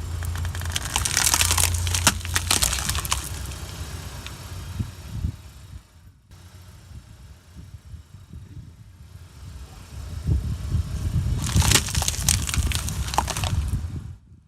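A car tyre rolling over and crushing brittle objects, a dense run of cracks and crunches over a low rumble, heard twice: near the start and again after about eleven seconds.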